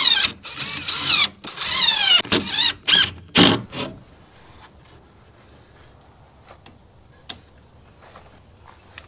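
DeWalt cordless drill driving screws into a shutter hinge in several short bursts, its motor whine gliding up and down in pitch as the trigger is squeezed and eased off. It stops about three and a half seconds in, after which only a few faint clicks are heard.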